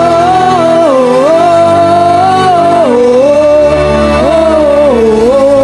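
Gospel worship music between sung verses: a single melody line holding long notes and gliding smoothly between them, over steady low bass notes.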